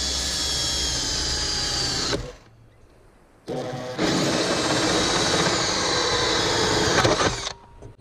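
Makita cordless drill spinning a 3/4-inch Bosch hole saw through the sheet-metal wall of an RV refrigerator roof vent. It runs in two spells of a few seconds, with a pause of about a second and a half between them. The second spell ends once the hole is cut through.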